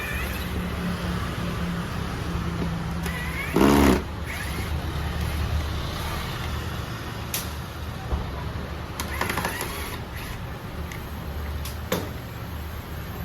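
Vehicle engines running with a steady low rumble, like street traffic, with one short loud blast about three and a half seconds in and a few sharp clicks later.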